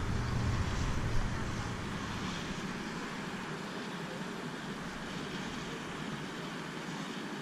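Wind buffeting the microphone as a low rumble that dies away over the first two or three seconds, leaving a steady outdoor hiss.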